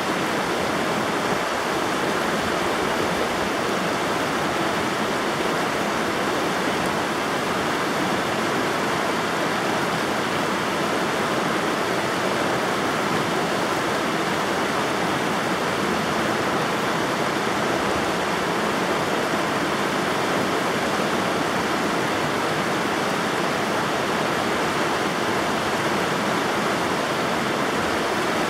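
River water rushing steadily over rocks, an even, unbroken wash of sound.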